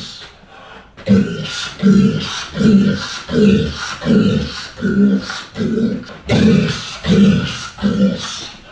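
A man's voice grunting a short "gos" sound over and over, about two a second, in time with repeated air punches, played back at half speed so each grunt is slowed and deepened. After a brief pause at the start, the grunts run on evenly.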